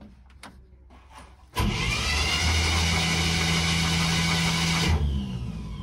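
1958 Chevy Impala's 348 V8 being cranked by its starter for about three seconds, starting about a second and a half in and stopping abruptly. It turns over evenly without firing, because the distributor rotor is off, to blow out oil put in the cylinders earlier; it turns over great.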